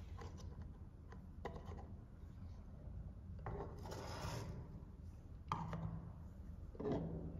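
Miniature plastic toy pots and lids being handled: light clicks and taps as pieces are picked up and set down on the table, with a scraping rub about four seconds in and two sharper clicks near the end.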